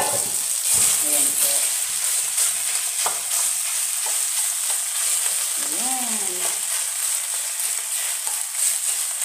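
Marinated thin-sliced beef sizzling in hot olive oil in a wok, a steady hiss, while a wooden spatula stirs it, knocking against the pan a couple of times near the start.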